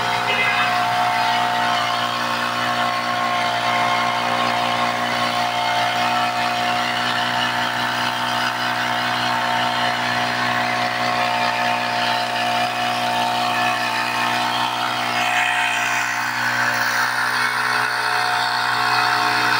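Small petrol engine of a portable power sprayer running steadily at high speed, driving the pump that throws a long water jet.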